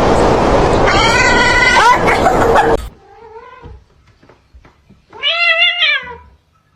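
Cat yowling: a loud, harsh wail lasting about three seconds, then a short faint meow and a longer meow that rises and falls near the end.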